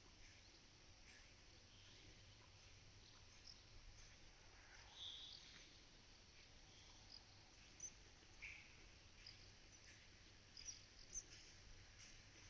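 Quiet pasture ambience with faint, scattered chirps and calls of small birds.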